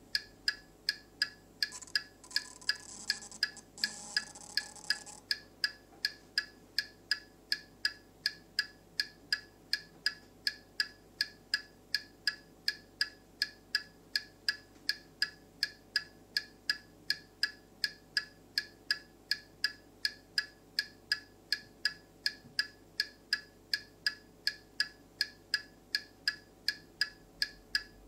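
Steady electronic ticking from the Turbo Racing C50 RC semi truck's sound module, even and quick at about two and a half ticks a second. Between about two and five seconds in comes a short whir of the small electric motor raising the front of the trailer.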